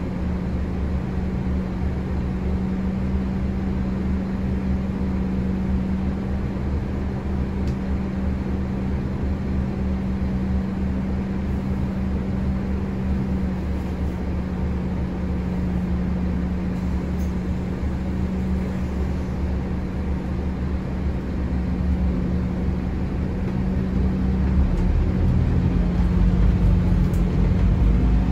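Scania N270UD Omnicity double-decker bus's five-cylinder diesel engine idling steadily with a low hum, heard from the top deck. Near the end it grows louder as the bus pulls away.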